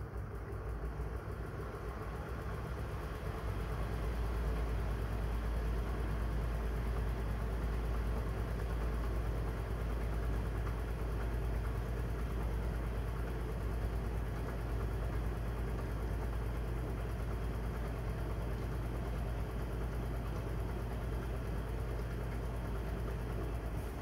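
Miele W1 front-loading washing machine running, its drum turning with a steady low mechanical hum that builds over the first few seconds and then holds even.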